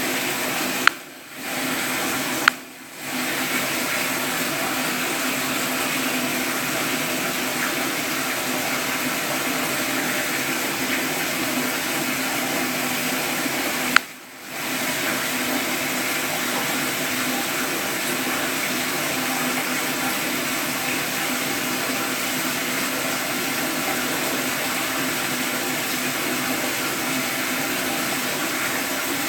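Steady rushing water, with three sharp clicks of a smartphone's touch-screen taps: two close together about a second in, one near the middle. After each click the water sound briefly drops out.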